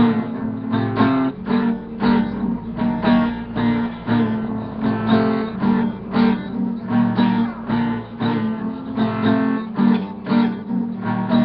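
Acoustic guitar strummed in a steady rhythm, chords ringing under even, repeated strokes.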